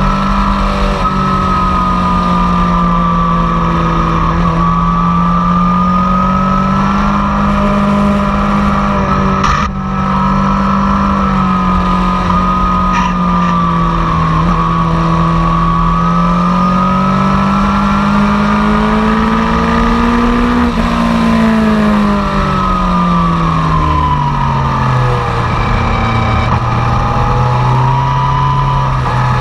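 Yamaha FJR1300's inline-four engine pulling at speed on a track, its pitch swelling and easing with the throttle over a steady rush of wind. There is a brief dip about ten seconds in, and after about twenty-one seconds the pitch falls away steadily as the throttle closes, then holds lower.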